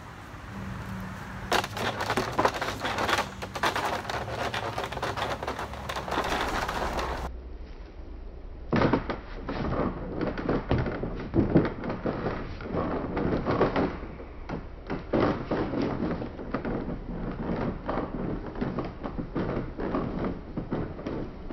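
A person scrambling up a wooden obstacle-course wall: repeated knocks, thumps and scrapes of shoes and hands on the wooden planks. The sounds come in two stretches, with a short lull about seven seconds in and the second stretch starting about nine seconds in.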